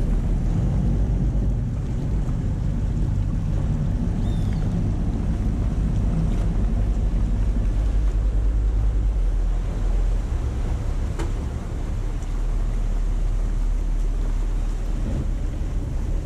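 A small boat's engine runs steadily at low speed, with water rushing along the hull and wind on the microphone. The engine hum eases briefly about two-thirds of the way through.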